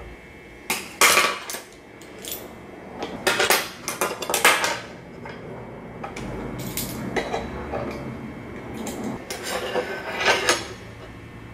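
Flat steel bracket pieces clinking and scraping against a steel table top as they are set into a jig and clamped with locking C-clamp pliers: sharp metal clatter in three short clusters, near the start, in the middle and near the end.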